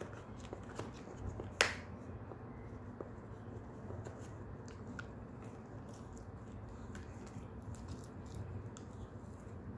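Shetland sheepdog gnawing a cow horn: irregular small clicks and scrapes of teeth on hard horn, with one sharp, much louder click about a second and a half in.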